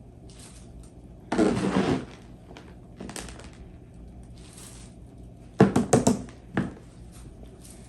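A brief rustling scrape, then a quick cluster of sharp knocks and thunks about three quarters of the way in, with one more knock just after.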